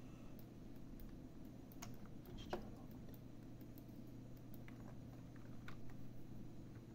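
Scattered clicks of a computer mouse and keyboard, a handful of separate clicks over several seconds with the loudest about two and a half seconds in, over a steady low hum.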